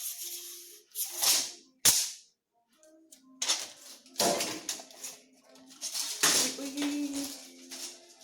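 Background music playing under repeated bursts of rustling, hissy noise, with one sharp knock about two seconds in.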